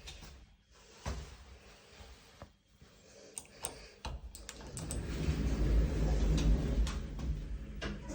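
Passenger lift: a few light clicks, then from about four seconds in a steady low rumble and hum builds up and holds, as the lift car runs.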